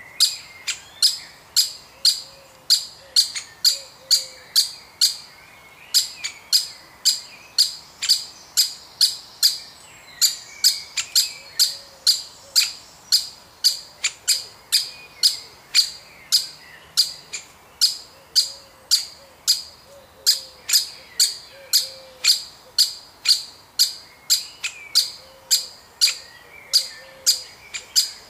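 Woodpecker giving sharp, short calls, repeated about twice a second in long runs with brief pauses.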